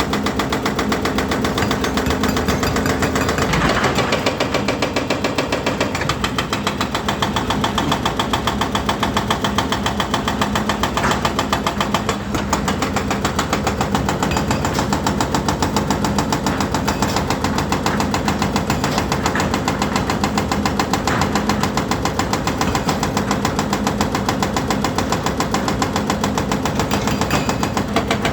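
Volvo EC210D excavator's diesel engine running steadily with a fast, even clatter.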